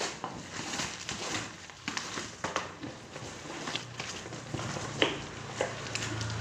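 Packaging and accessories being handled during an unboxing: rustling and crinkling with scattered small clicks and knocks, the sharpest knock about five seconds in. A low steady hum comes in about four seconds in.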